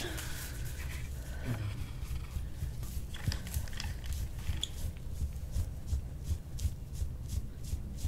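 Metal soft-tissue scraping tool dragged over an oiled back, giving a gritty crackle of many small clicks that come faster in the second half, as it breaks up knotted, congested muscle and fascia.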